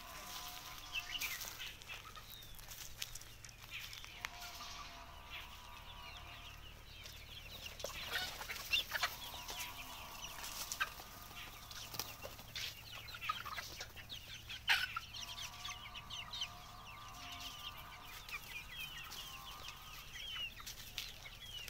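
A flock of desi (Indian country-breed) chickens clucking and calling over one another. Scattered sharp clicks run through it, the loudest about halfway through.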